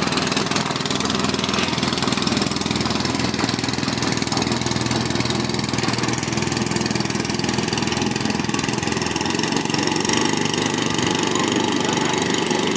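Small boat engine running steadily, its rapid firing pulses steady in pitch and level.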